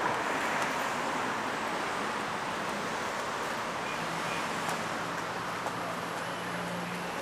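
Street ambience of passing car traffic: a steady wash of road noise, with a low engine hum joining in over the second half.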